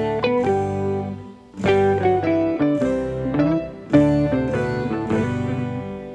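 Background music: a tune of separate plucked-string notes, each starting sharply and dying away.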